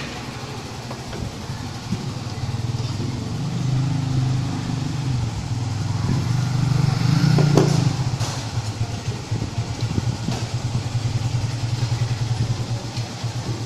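Motorcycle engine running steadily, swelling louder around the middle of the stretch before settling back.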